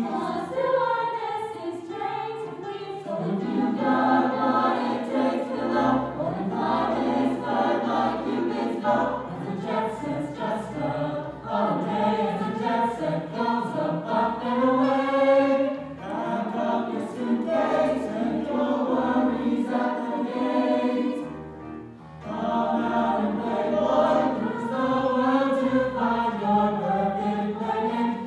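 Mixed-voice choir singing a pop song in harmony through stage microphones, with a brief drop in the singing about three-quarters of the way through.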